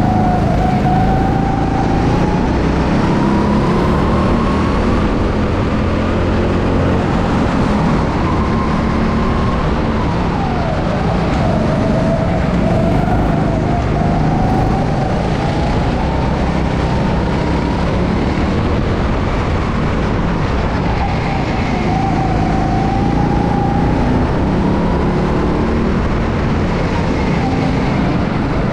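Go-kart driving at speed, its running tone slowly rising as it accelerates and dropping sharply when it slows, three times over, over a steady rumble and rushing noise.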